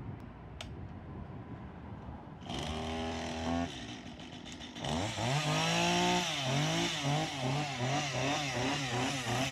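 Two-stroke chainsaw starting up about two and a half seconds in, running briefly at a steady pitch, then revved up and down over and over by the throttle.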